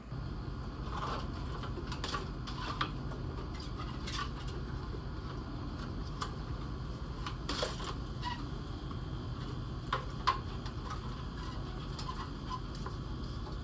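Irregular clicks and light clinks of hand tools and fasteners while parts are taken off a car's front end, over a steady low hum.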